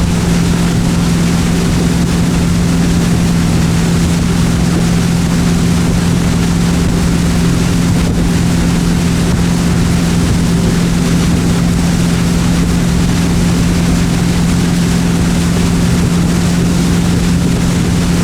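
Motorboat engine running steadily at towing speed, heard from on board as a constant low drone, with wind and water noise over it.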